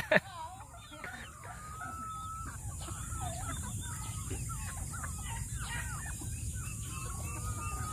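A flock of free-range chickens clucking and calling in many short calls, with a longer held call about a second in and again near the end.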